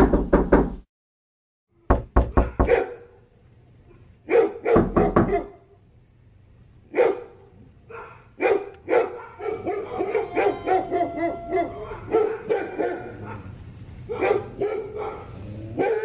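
Knocking in three quick bursts of raps, then a dog barking over and over, the barks coming faster and closer together in the second half.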